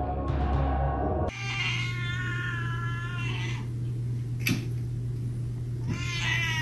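A cat giving two long, drawn-out meows of about two seconds each, the second starting near the end, over a steady low hum, with a single sharp click between them. Before them, about the first second is music.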